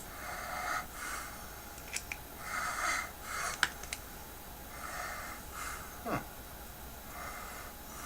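A person breathing audibly through the nose, a breath about every two seconds, close to the microphone. Small clicks and taps from handling small parts come through, the sharpest about three and a half seconds in, and a brief falling squeak comes about six seconds in.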